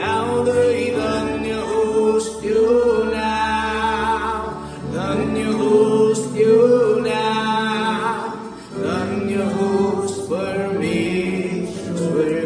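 A worship song: a man leads the singing into a microphone while other voices sing along, over a strummed acoustic guitar.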